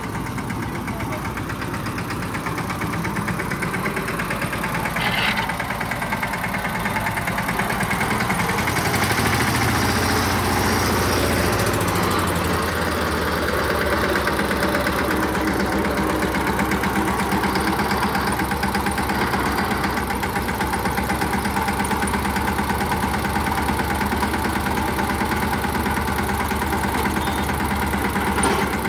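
A 16 hp Kailash mini tractor's engine running steadily with a fast, even beat while its rear rotavator works the soil and weeds. The engine grows louder about eight seconds in.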